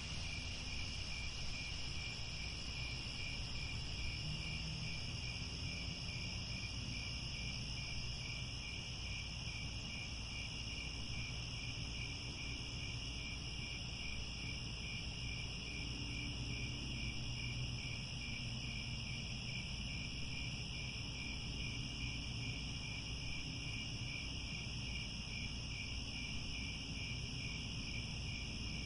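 Crickets chirping steadily in a dense chorus, several pitches layered, with a fine pulsing rhythm in one of them, over a low steady rumble.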